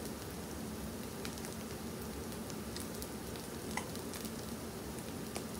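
Pizza chaffles sizzling steadily in the wells of an open electric mini waffle maker, nearly done cooking, with a few faint ticks.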